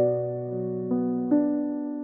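Slow, soft keyboard music in a piano tone. A chord rings and fades, and new notes come in about a second in and again about a third of a second later.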